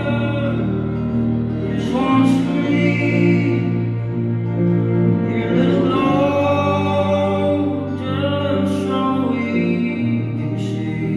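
Live band playing a slow indie-folk song: a sung vocal over acoustic guitar and keyboards, with low sustained bass notes that change every couple of seconds.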